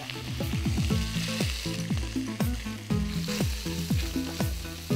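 Chopped cabbage sizzling in hot oil in a kadai as it is stirred with a spoon. Background music with repeated falling low notes plays along.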